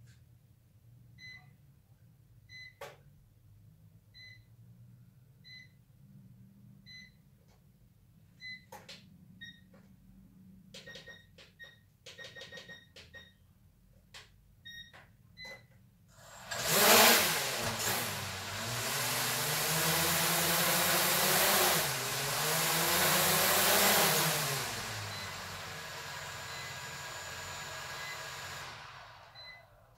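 Small toy quadcopter: short high electronic beeps about every second and a half, coming quicker for a few seconds, then its propeller motors spin up about halfway through, whirring loudly with pitch rising and falling as the throttle changes, easing off and cutting out near the end.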